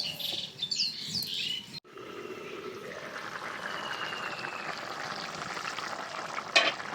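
Small birds chirping for about two seconds, then, after an abrupt cut, a steady bubbling hiss of pumpkin curry simmering in water in the kadai. A sharp knock near the end.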